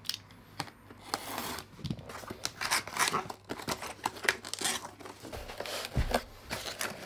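Utility knife slitting the tape seal on a cardboard box, then the box's tab flaps and lid being pried open and lifted: irregular scraping, rustling and tearing of cardboard, with a dull knock near the end.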